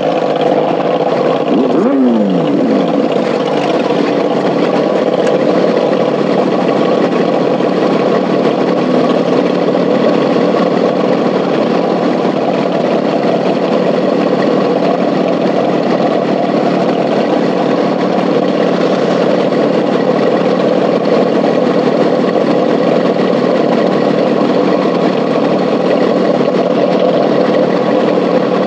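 Sport motorcycle engines idling steadily, with one engine revved briefly and falling back about two seconds in.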